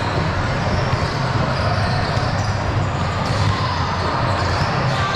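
Basketball game sounds in a gym: a ball bouncing on the court, with a steady wash of background voices and movement echoing in the large hall.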